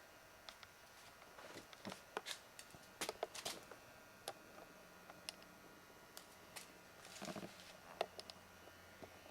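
Faint irregular clicks and short rustles, like handling noise, over a low steady hum.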